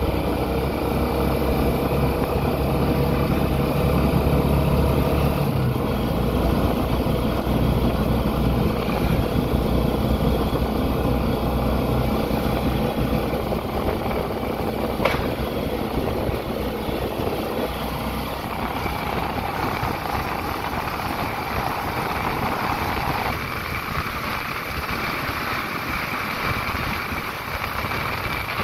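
Steady vehicle engine and road noise while travelling. A low engine drone fades about a fifth of the way in, and one sharp click sounds about halfway through.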